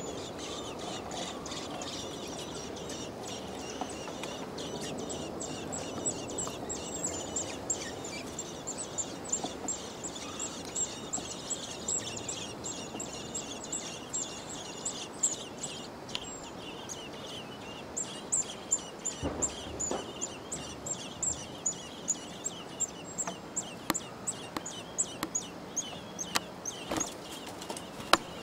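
Common blackbird nestlings begging for food: a long, rapid run of high, thin cheeps, several a second, getting louder and spikier from about six seconds in, over a low, steady background noise.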